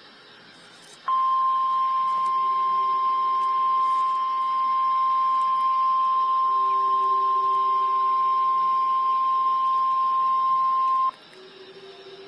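NOAA Weather Radio warning alarm tone: one steady high-pitched tone that comes in about a second in, holds for about ten seconds and cuts off sharply. It signals that a severe thunderstorm warning is about to be read.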